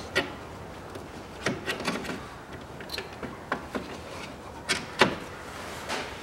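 Irregular clicks and knocks of a hand wrench working on a bolt in a car's engine bay: about a dozen sharp strikes, the strongest about a second and a half, two seconds and five seconds in.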